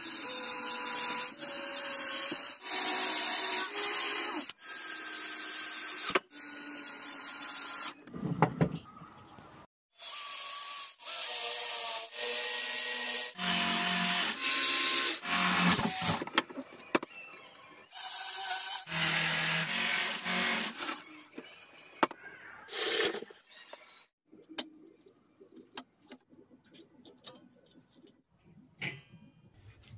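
Electric drill boring into wood in a series of short runs of a second or two each, its motor giving a steady whine over the cutting noise. In the last few seconds there are only faint light clicks and taps.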